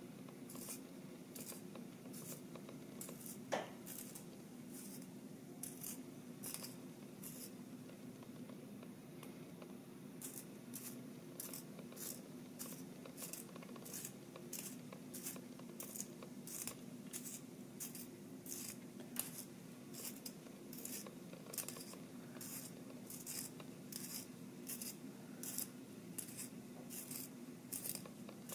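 Brass hand-held pencil sharpener shaving the wood of a pencil as it is turned: a steady series of short, crisp scrapes, about two a second, with a pause of a couple of seconds about eight seconds in. A single click about three and a half seconds in.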